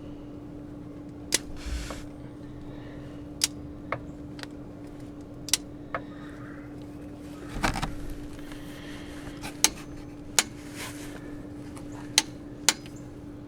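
Scattered sharp metallic clinks, about nine, as of tools or small parts being handled, with a longer clatter about eight seconds in, over a steady hum.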